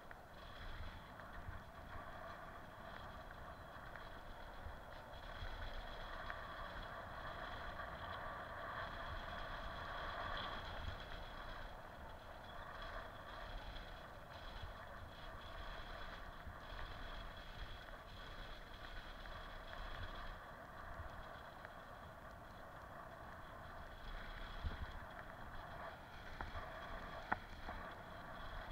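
Bicycle rolling downhill over a road of perforated concrete slabs: a steady rough rumble and rattle of tyres and bike, with a couple of sharp knocks near the end.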